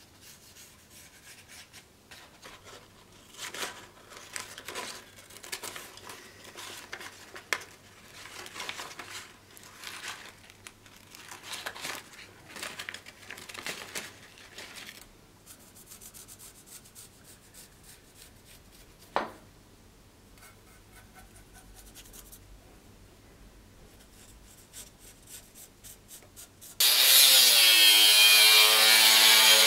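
Scissors snipping and rustling through a paper template in a run of short strokes, with one sharp click a while later. Near the end an angle grinder spins up with a rising whine and cuts into a metal plate, much louder than the cutting before it.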